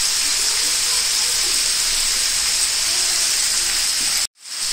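Hot oil sizzling steadily in a pan as chicken pieces fry on a high flame. The sound cuts out abruptly for a moment about four seconds in, then resumes.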